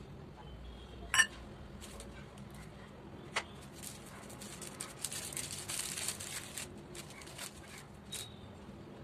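Small clear plastic packet crinkling and rustling as it is handled and opened, loudest in the middle; a single sharp click about a second in and a softer tap a couple of seconds later.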